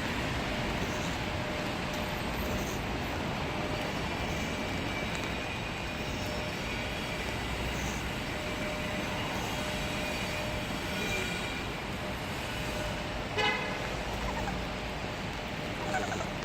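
Steady hiss of heavy rain and road traffic, with a brief pitched toot about 13 seconds in. Near the end, a short high whimper from the miniature schnauzer.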